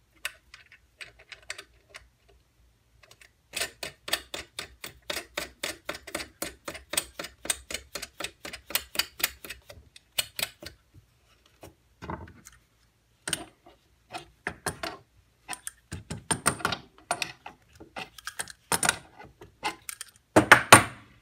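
Small metal clicks and taps as a bolt, nut and washer are fitted by hand to a wooden drill-press jig. A fast, even run of clicks lasts several seconds, then scattered taps follow, with a louder clatter near the end.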